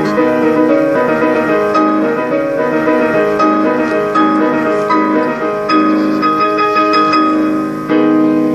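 Background piano music: a quick melody of clear notes over held chords.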